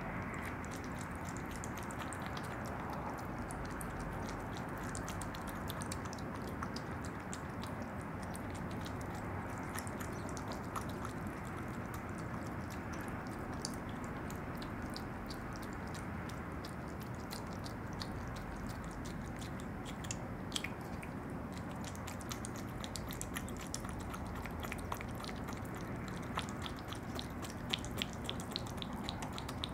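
Opossum eating yogurt: rapid wet smacking and licking clicks of its mouth over a steady background hiss, the clicks coming a little thicker near the end.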